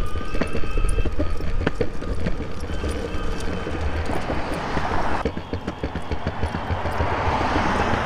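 Boosted Board electric skateboard rolling over the joints of a concrete sidewalk with a faint motor whine, and a steady wind rumble on the mic. A husky's paws patter alongside, and road traffic noise swells near the end.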